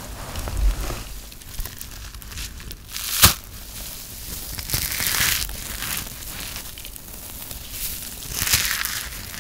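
Hands crushing a ball of pressed grated soap, the crispy soap shavings crunching and crumbling. A sharp crack about a third of the way in is the loudest sound, with more clusters of crunching around the middle and near the end.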